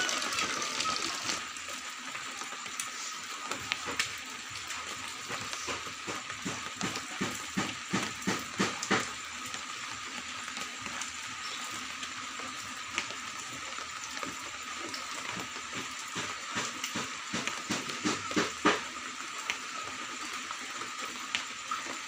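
Steady hiss with scattered small clicks and taps, including a quick cluster about a third of the way in, from hands working a phone, an audio mixer and an amplifier's volume knob.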